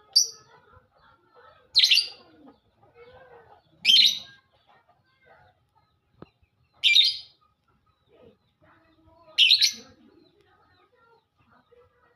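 A pet songbird calling: five short, scratchy, high calls, each about half a second long, spaced two to three seconds apart.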